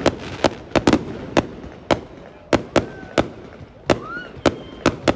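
A rapid, uneven series of sharp firework bangs, about a dozen in five seconds, each with a short echoing tail.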